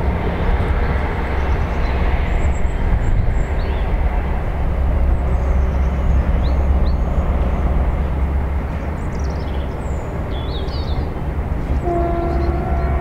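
HST Class 43 diesel power car approaching at speed, a steady low rumble throughout, with birds chirping. A steady humming tone comes in near the end as the train draws closer.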